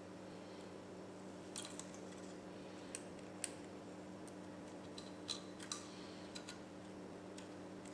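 Faint, scattered light clicks and taps from fingers handling small parts on a bare laptop motherboard, over a faint steady low hum.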